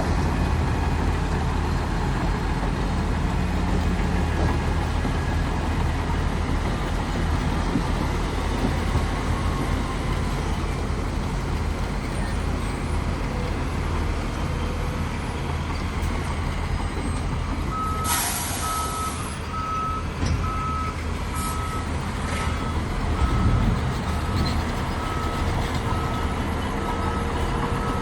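Heavy diesel engines of earthmoving machinery running steadily. About two-thirds of the way in a short air hiss, typical of a truck's air brakes releasing, is followed by a reversing alarm beeping at a regular pace.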